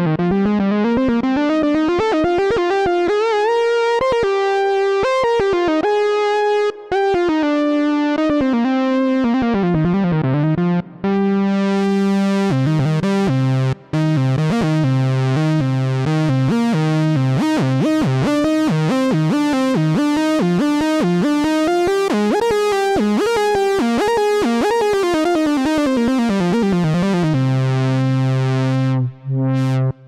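Moog Subsequent 25 analog synthesizer playing a lead patch: a melodic line that glides from note to note, with held low notes sounding underneath from about ten seconds in. The playing stops for a moment a few times and ends on a held low note.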